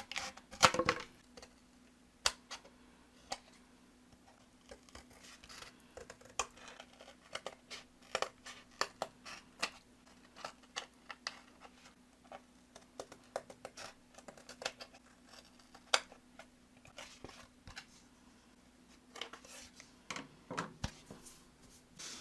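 Scissors cutting cardboard: short, irregular snips and crunches, coming in runs with brief pauses between them.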